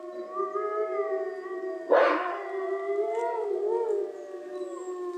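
Several wolves howling together in a chorus, long held calls at different pitches overlapping and slowly bending. About two seconds in a sudden short harsh burst cuts across them.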